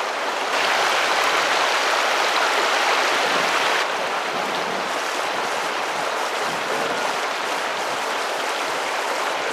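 Shallow river riffle: water running over stones in a steady rush, a little louder from about half a second to four seconds in.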